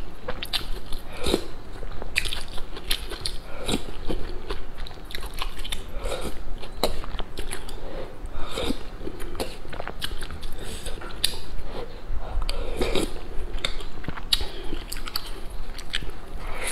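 Close-miked mouth sounds of a person eating soup and a soft dumpling: repeated wet chewing, lip smacks and bites in an irregular stream of short clicks.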